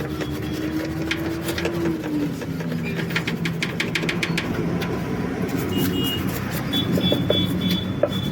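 A motor running steadily, with a run of sharp clicks in the middle.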